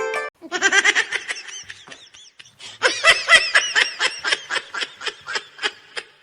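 High-pitched laughter in two bouts, each a quick run of pulses that fades away; the second bout starts about halfway through and is the louder.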